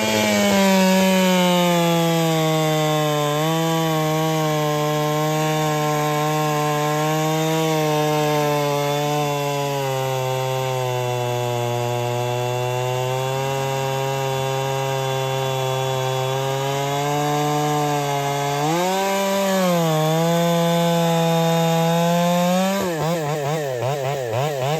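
A Holtzfforma 372 clone two-stroke chainsaw, tuned lean, cutting through a log at full throttle. Its pitch sags under load as the chain bites deeper. Near the end it comes free of the cut and the engine note wavers rapidly up and down.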